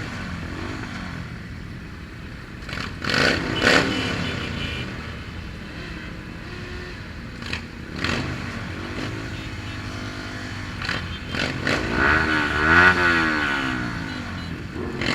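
Small 125cc motorcycle engine revving, its pitch rising and falling several times, with the loudest revs about three seconds in and again near the end.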